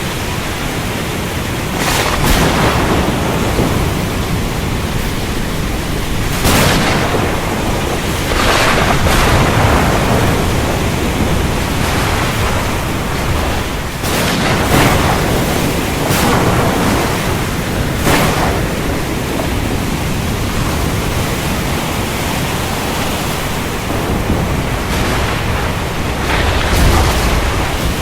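Steady heavy rain with sharp cracks of thunder every few seconds.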